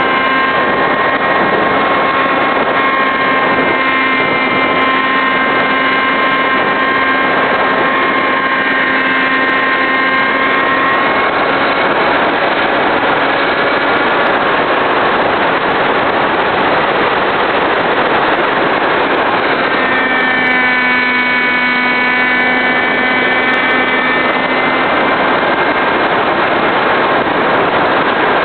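Electric motor and propeller of an RC SkySurfer model plane whining steadily under heavy wind rush on the camera's microphone. The whine fades out under the wind a little before the middle and comes back about two-thirds of the way through.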